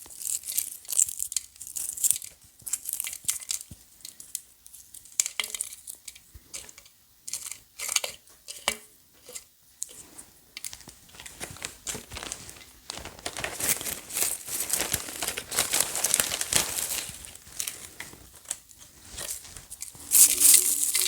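Dry catnip leaves being stripped off their stems and crumbled by hand: irregular crackling and crinkling rustles, busiest past the middle and again near the end.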